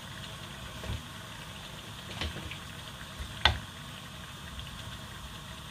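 A serving spoon scooping thick stew from a plastic tub into a pot, giving three light knocks against the containers; the sharpest comes about three and a half seconds in. A steady low hum runs underneath.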